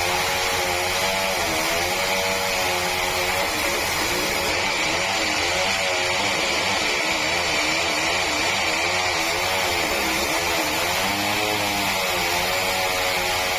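Sawmill running: an engine drone whose pitch dips and recovers every second or two, over a steady high whine and noise from the saw.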